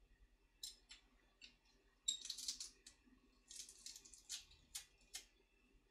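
Faint, scattered crackles and light clicks of garlic being handled by hand on a plate, in irregular little clusters with short gaps between.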